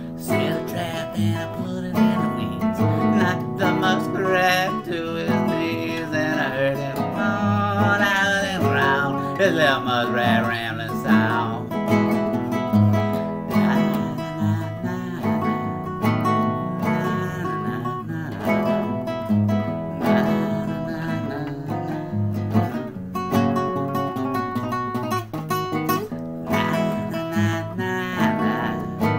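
Classical guitar strummed in a steady rhythm, with a man's wordless singing over it at times.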